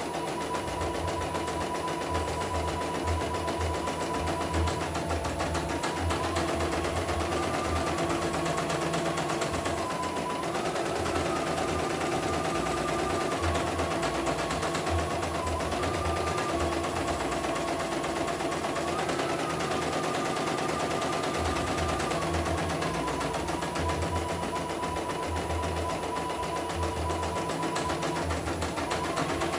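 CNY E900 portable computerized embroidery machine stitching a design: a rapid, steady chatter of needle strokes over a motor whine that steps slightly up and down in pitch every few seconds.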